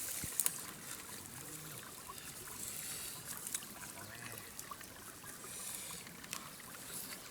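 Water trickling and lightly splashing, with scattered small clicks.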